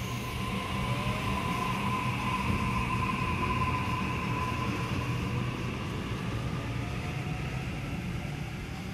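Sydney Trains Waratah double-deck electric train running through the station without stopping: a steady rumble of wheels on track with a high whine over it. The whole sound slowly fades over the second half as the train draws away.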